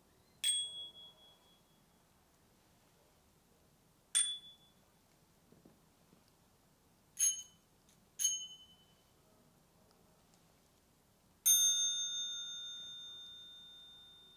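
Bicycle bells struck one at a time, five single dings in all, each from a bell with its own tone. The first four ring out briefly, a few seconds apart, the third and fourth about a second apart. The last, near the end, is lower and fuller and keeps ringing for several seconds.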